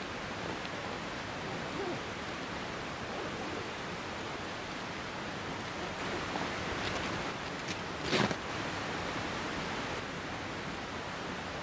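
Steady, even rushing hiss of outdoor ambience, with a few faint ticks and one short, sharp rustle about eight seconds in.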